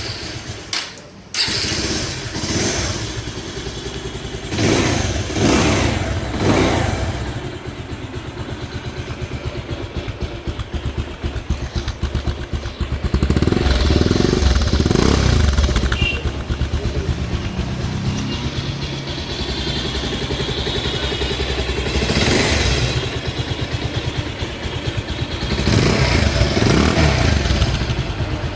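Bajaj Pulsar 220's single-cylinder engine running at idle and revved up in short blips several times, settling back to idle between them.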